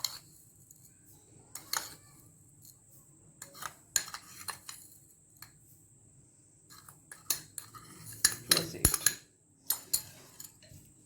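Metal spoon clinking and scraping against a mixing bowl as spoonfuls of sugar are scooped and added to the batter: scattered sharp clinks, busier near the end.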